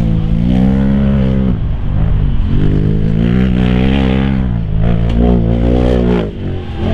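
Side-by-side UTV engine revving hard in about three rising and falling surges as it climbs the hill and launches off a dirt jump. The engine sound drops away about six seconds in as the machine leaves the ground.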